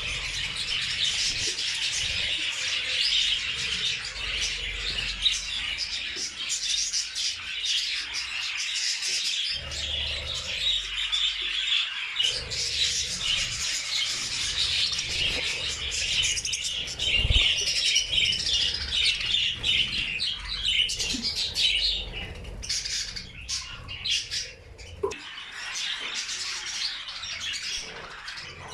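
A flock of budgerigars chattering and chirping all at once, a dense continuous twitter of many birds. The chatter thins out about three-quarters of the way through.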